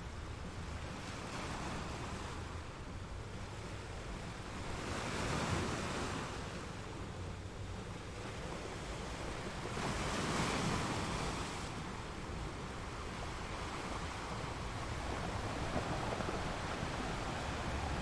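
Ocean surf breaking and washing over rocks in slow swells, one about five seconds in, one about ten seconds in, and another near the end. Under it runs a steady low rumble of wind on the microphone.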